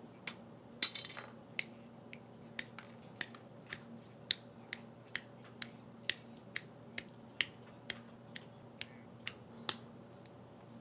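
Hard plastic model-kit parts clicking and snapping as a gunpla kit is assembled: a steady run of sharp clicks, about two a second, with a quick cluster of several near the first second.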